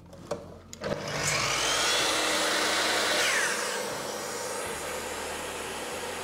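Makita LS1219L mitre saw switched on with no cut: its motor spins up with a rising whine about a second in, runs, then winds down with a falling whine a few seconds later. Through all this the Festool CTL MIDI extractor, started automatically by the saw, runs steadily and keeps going after the saw has stopped.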